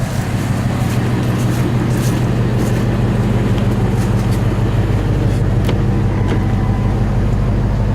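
1998 Ford Expedition's V8 running through straight pipes with no mufflers, a loud, steady idle.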